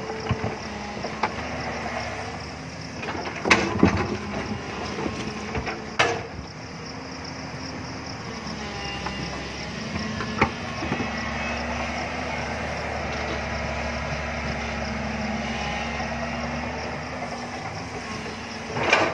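JCB tracked excavator's diesel engine running steadily under hydraulic load while it digs into a rocky hillside. Sharp knocks and clanks of the steel bucket striking rock and soil break in several times, loudest about three and a half to four seconds in, at six seconds and near the end.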